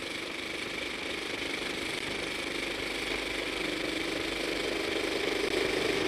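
Motion-picture camera running: a steady mechanical whirr that grows slightly louder.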